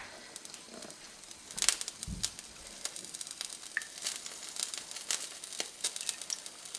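Cooking oil heating in a pan, giving faint, scattered crackles and ticks, with one soft low thump about two seconds in.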